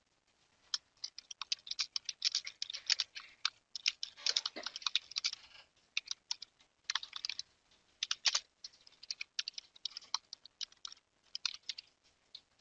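Computer keyboard typing: quick, irregular runs of keystroke clicks broken by short pauses.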